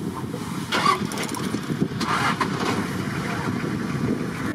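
A motor engine running with a steady low rumble, with brief hissing bursts about a second in and again around two seconds in.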